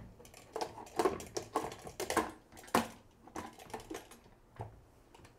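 Aluminium stovetop pressure cooker lid being set on the pot and twisted shut by its handle: a run of irregular light metal clicks and scrapes, the sharpest nearly three seconds in.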